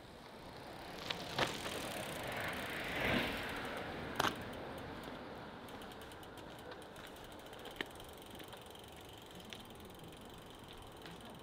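A loaded touring bicycle's freewheel ticking rapidly as the bike is pushed along on foot, with footsteps and a few sharp knocks on the paving.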